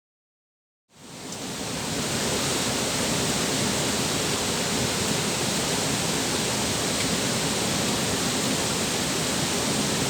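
Waterfall, water rushing in a steady, even hiss that fades in about a second in, after a moment of silence.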